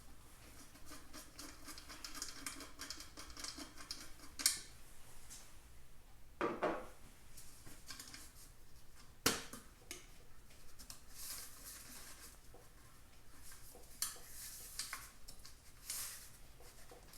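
Metal tools and motorcycle parts clinking and clattering during hands-on work. A run of quick light ticks in the first few seconds is followed by several separate sharper knocks.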